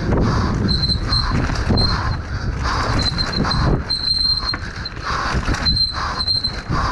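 Mountain bike descending a dirt forest trail at speed: a rough rumble and rattle of tyres and bike over the ground, with wind buffeting the helmet camera. A thin, high squeal cuts in and out several times, the sound of the disc brakes squealing as the rider brakes.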